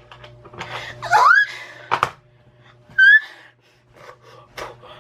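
A person whistling: a rising whistled glide about a second in and a short high whistled note around three seconds, with a single sharp click between them.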